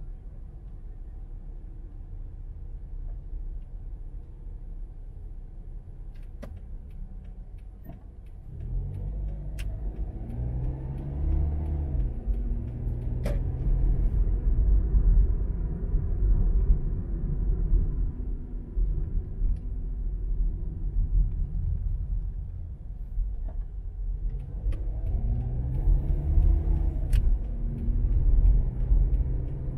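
Car engine and tyre road noise while driving, the low rumble growing louder as the car pulls away about eight seconds in. The engine note rises as it speeds up, then rises again near the end.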